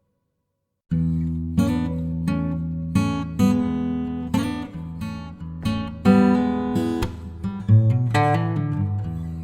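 Acoustic guitar music, chords strummed and plucked, starting abruptly about a second in after a moment of silence.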